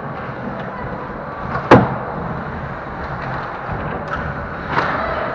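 Ice hockey play close to the net: a steady wash of rink noise and skates on the ice, with one sharp crack, the loudest sound, about a second and a half in, and a smaller knock near the end.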